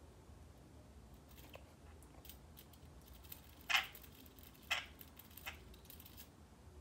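Parakeet's beak making a few short, sharp clicks and crunches against a low room hum. The two loudest come about a second apart near the middle.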